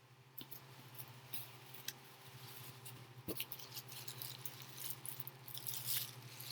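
Paper-towel packing rustling and crinkling by hand as a small figure is unwrapped, in scattered small crackles that grow busier and louder toward the end.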